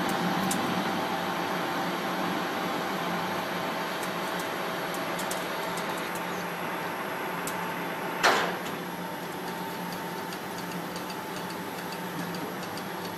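Large engine lathe running while the tool faces a big metal disc: a steady machine running noise with a few faint ticks. A single loud metallic clank rings briefly about eight seconds in.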